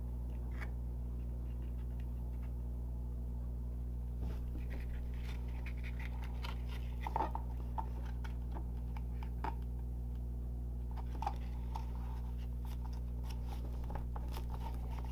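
Cardstock crinkling and rustling under the hands as a glued paper box card is pressed and folded, a few short scattered crackles and taps over a steady low hum.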